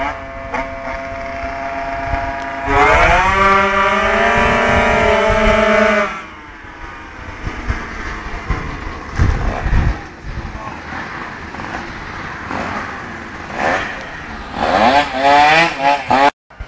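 Two 50cc two-stroke scooters, a Piaggio Zip SP and one with a rotary-disc-valve Minarelli engine, racing side by side at full throttle. Their high engine notes rise together for about three seconds, drop away suddenly, then carry on softer and rise again near the end as the scooters come up close.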